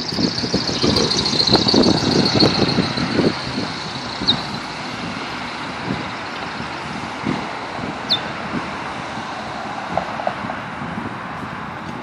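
Caged songbird giving a rapid, high twittering song for about the first three seconds, then single short, sharp notes falling in pitch about every four seconds. Road traffic runs steadily underneath, loudest while a vehicle passes during the song.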